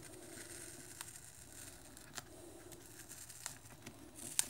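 Faint crackle and a few small ticks as an adhesive-backed NFC coil is peeled by hand off a plastic phone battery cover.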